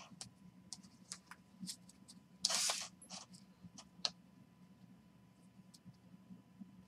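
Trading cards being handled and sorted by hand: scattered light clicks and taps of cards against each other, with one louder brushing slide lasting under half a second about two and a half seconds in.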